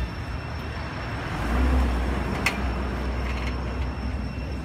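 Outdoor background noise: a steady hiss with a low rumble that swells about a second and a half in, and one sharp click about two and a half seconds in.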